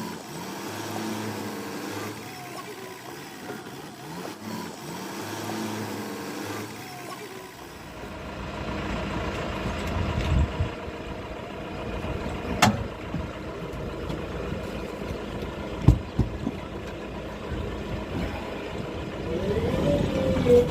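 JCB 3DX backhoe loader's diesel engine running as the machine works, getting louder and fuller about a third of the way in. Two sharp knocks stand out in the second half, and the engine revs up near the end.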